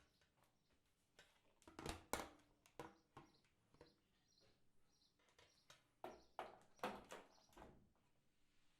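Faint scattered knocks, clicks and rustles of a person moving about and handling things in a small room, with no water running.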